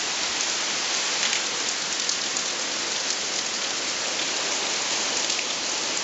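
Waterfall: a steady hiss of water falling and spattering onto rock.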